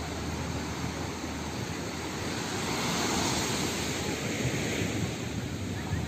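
Small waves breaking and washing up on a sandy beach, with wind buffeting the microphone. The surf swells up about three seconds in.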